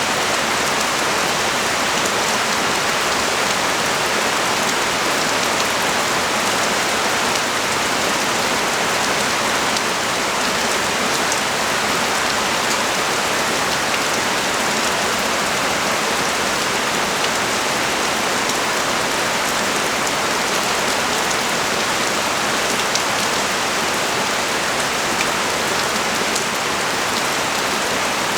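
Heavy rain pouring steadily onto a street, a dense even hiss with faint scattered drop ticks.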